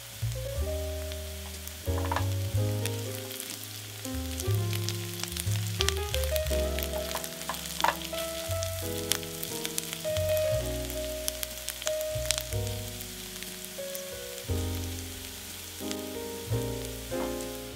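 Chopped onions sizzling in oil in a frying pan, stirred now and then with a spatula that gives occasional sharp clicks against the pan. Background music with held notes plays underneath throughout.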